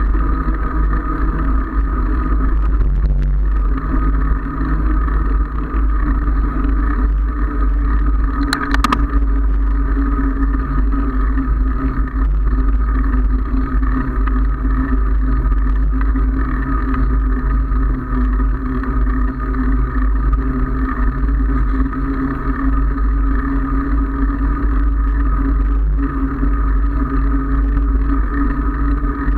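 Wind rushing over the microphone of a handlebar-mounted camera on a moving bicycle, with a steady hum under it and one sharp knock about nine seconds in.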